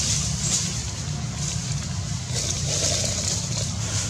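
Steady outdoor background noise: a constant low rumble with a high hiss that swells and fades.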